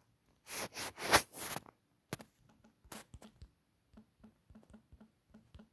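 Typing on a smartphone's on-screen keyboard: a quick run of light, separate taps, about three or four a second. Before it, around a second in, come a few short rustling hisses, the loudest sound here.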